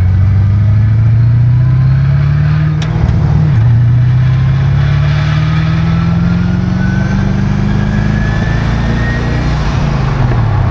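Twin-turbocharged V8 of a Callaway Corvette accelerating, heard from inside the cabin. The engine note climbs, drops sharply at a gear change about three and a half seconds in, then climbs steadily again with a rising whine alongside, before falling away near the end.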